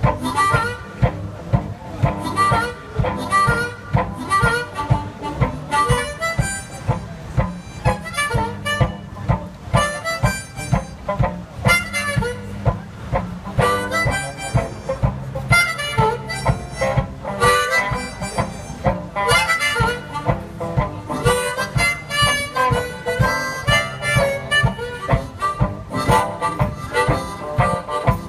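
Harmonica playing an instrumental solo over a steady beat in a one-man band's blues-style accompaniment.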